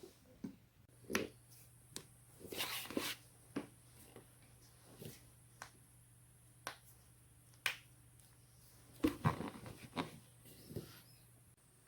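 Joints cracking: a string of sharp pops and clicks, about a dozen, bunched into quick runs about a third of the way in and again near the end, over a faint low hum.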